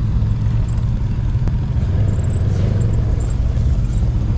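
Off-road buggy engines running steadily while driving: a continuous low rumble.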